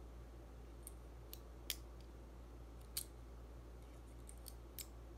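A handful of faint, sharp metallic clicks, irregularly spaced with a quick run of them near the end, as a small speargun trigger mechanism is handled and worked with a thin metal rod.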